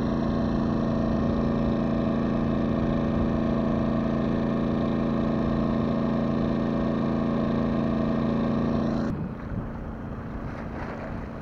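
A motor running with a steady hum that cuts off suddenly about nine seconds in, leaving a quieter background hiss.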